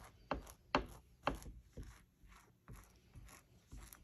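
Butter knife spreading soft butter across slices of white bread: a run of short scraping strokes, about two a second, the loudest in the first second and a half.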